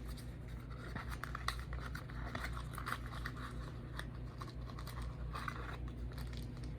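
Faint scratching and small clicks of hands going through a cube's accessory pack of a screwdriver and springs, over a low steady hum.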